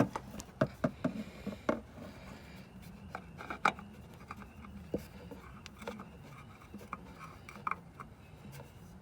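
Scattered light clicks, taps and rubbing of hands working with small metal parts, likely fitting a new oil filter under a car. The louder taps come near the start, about a second and a half in and about three and a half seconds in.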